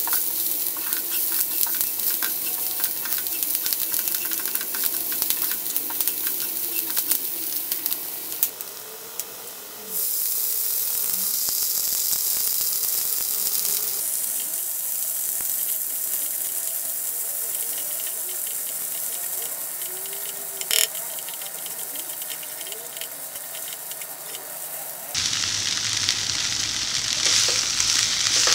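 Chopped onions, then drumstick leaves, sizzling in oil in a nonstick frying pan while a spatula stirs them. The sizzle changes level abruptly several times, and there is a single sharp knock about twenty seconds in.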